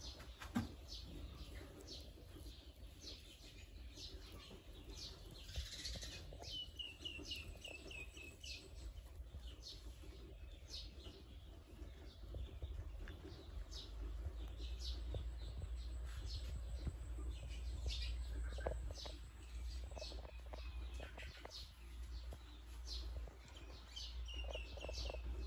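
Small birds chirping in short high notes throughout, with a quick run of falling notes about six seconds in and again near the end, over a steady low rumble.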